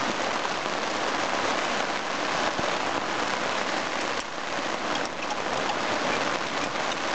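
Steady rain falling on the fabric of a small tent, heard from inside the tent.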